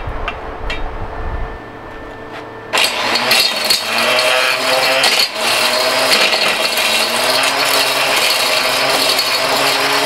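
Mighty Mill hammer-mill ore crusher, driven by an electric drill, starting up about three seconds in after a few light knocks and then running with loud, steady rattling and clattering as its hammers shred a plastic electronic connector. These are not good noises: the mill straining on material it was not made to crush.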